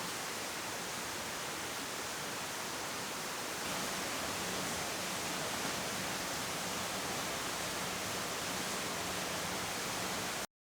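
Steady rain falling, an even hiss that gets a little louder about four seconds in and cuts off suddenly near the end.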